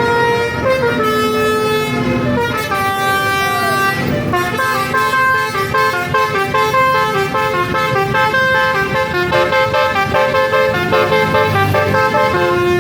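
Basuri telolet bus horns playing melodies, several horns overlapping in stepped notes, over the low rumble of bus engines.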